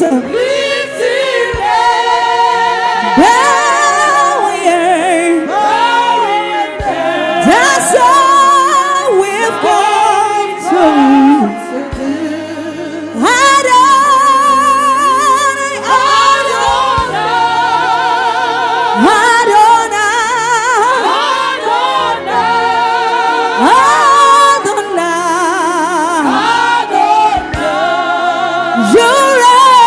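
Gospel praise singing: a lead voice with vibrato and backing voices holding melodic lines over steady keyboard and band accompaniment.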